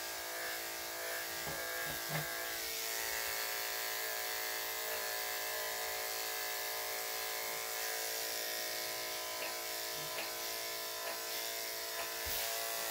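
Corded electric dog grooming clippers running steadily, an even motor buzz, as they trim the hair on a small dog's head and face.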